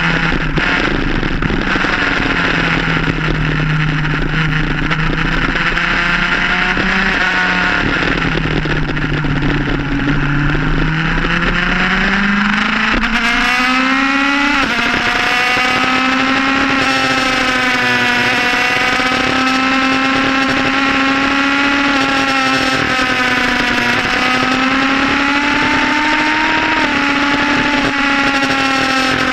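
Sports motorcycle engine heard from on board while riding, over a rush of wind noise. The revs sag and climb again through the first half, change sharply about halfway through, then hold higher with gentle rises and dips.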